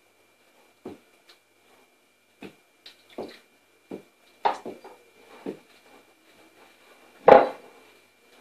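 Hands mixing flour and water into dough in a glass bowl: irregular soft knocks and rubs as the bowl and dough are worked, with one much louder knock about seven seconds in. A faint steady high whine sits underneath.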